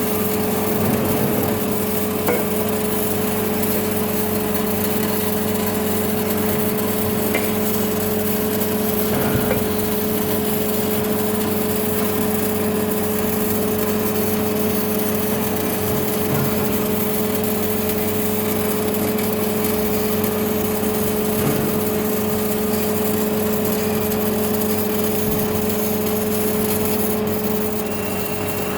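Automatic welding machine running: a steady hiss and crackle over a constant electrical hum, dropping away near the end.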